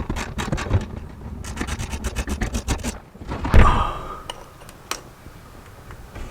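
Ratchet clicking in quick, even strokes as it backs out a 10 mm fog-light mounting bolt, then a loud metallic clunk about three and a half seconds in, followed by a few light clicks.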